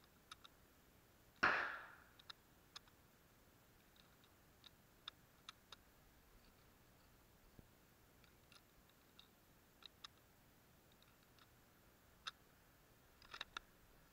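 Cartridges being pressed one at a time into the magazine of a Yugoslav M24/47 Mauser bolt-action rifle through its open action, giving sparse light metallic clicks. One much louder sharp clack comes about one and a half seconds in, and a quick run of clicks comes near the end.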